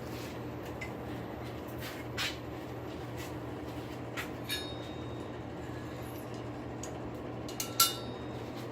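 Forge blower running with a steady hum while the steel heats in the fire. A few faint clicks are heard over it, with a sharper click about a second before the end.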